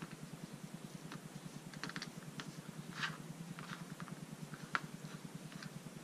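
Small irregular clicks and scratches of a clear laser-cut plexiglass buckle and a fabric headgear strap being handled and threaded together, over a steady low hum.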